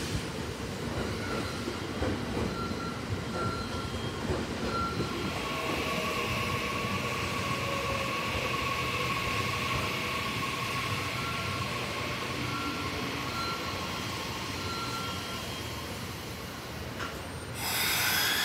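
JR Central 315 series electric train rolling slowly alongside the platform and braking to a stop: wheel-on-rail rumble with the whine of its traction motors and inverter, steady tones plus a faint falling one. About a second before the end comes a short, loud hiss of air as it halts.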